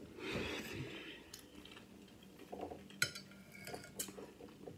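Metal fork scraping and clinking against a dinner plate while eating, with a few sharp clicks about a second and a half, three and four seconds in.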